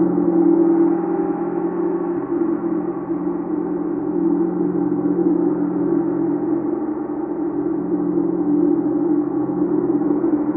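Chau gong sounding a steady, dense wash of many overlapping low tones, with no distinct strike and a gently rising and falling loudness.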